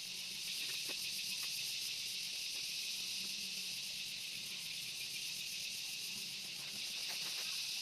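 Steady high-pitched chorus of forest insects, with faint scattered clicks.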